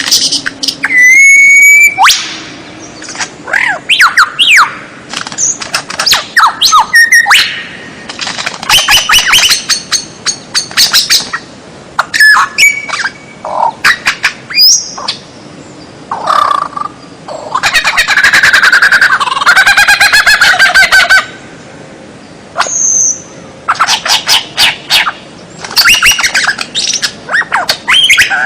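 Loud, varied songbird song from a bird-training (masteran) recording: whistled glides, rapid chattering trills and harsh squawking notes in quick succession, with a longer dense chattering run about two-thirds of the way through.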